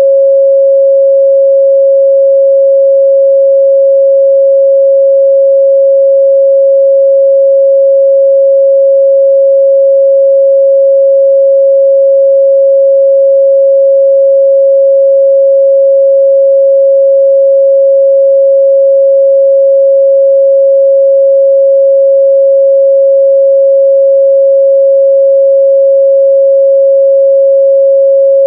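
A steady, loud 547 Hz sine-wave test tone: a single pure pitch held without change.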